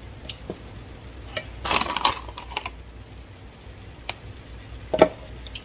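Frozen gyoza dumplings being set one by one into a square frying pan, making scattered light clicks and taps. There is a louder stretch of handling about two seconds in, and the loudest knock comes about five seconds in.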